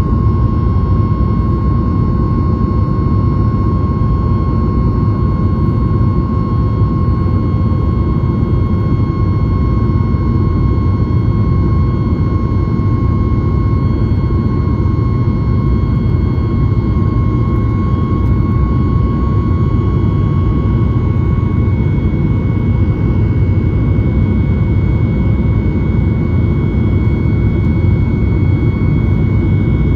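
Boeing 737-9 MAX's CFM LEAP-1B turbofans heard from inside the cabin beside the engine during the climb-out after take-off. A loud, steady rumble with thin high whines above it; about two-thirds of the way through one whine fades out while a higher one grows stronger.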